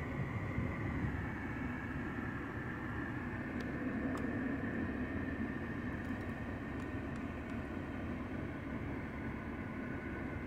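Steady running hum heard inside the cabin of a 2006 Mercedes E320 CDI with the engine on, with a few faint clicks from the centre-console buttons being pressed.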